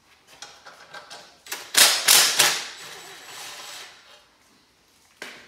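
Yellow DeWalt cordless drill/driver run in a loud, rapid clattering burst of about a second, starting about a second and a half in, then running more faintly until about four seconds in. A few light clicks of tool handling come before it.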